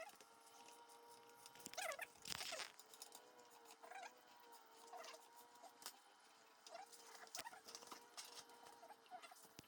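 Near silence: a faint steady hum with scattered small clicks and one brief rustle about two seconds in.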